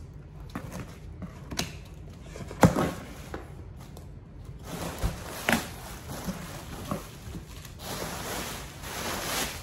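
Plastic packaging and bubble wrap rustling and crinkling as items are lifted out of a cardboard box, growing louder toward the end, with a few knocks of handling against the box.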